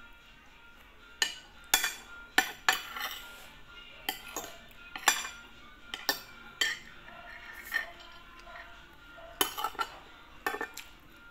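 Metal spoon and fork clinking and scraping against a plate while eating, in irregular sharp clicks and short scrapes that begin about a second in.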